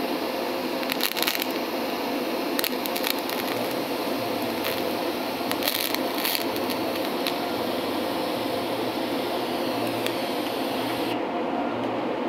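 TIG welding arc from an Eastwood TIG 200 DC welder brazing silicon bronze filler onto a brass radiator's capped ports: a steady hiss with scattered sharp crackles. The arc cuts off suddenly near the end.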